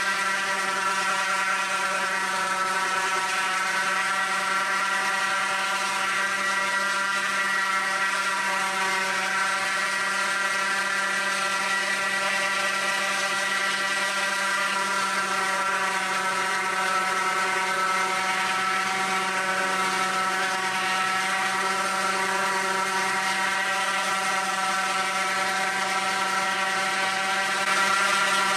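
Half-sheet sander and shop dust collector running together with a steady whir as small wooden boxes are sanded against the sander's pad.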